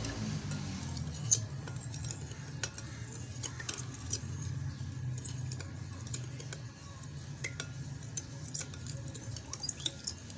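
Metal spoon stirring sugar into milk in a glass bowl, clinking irregularly against the glass, with one louder clink just over a second in.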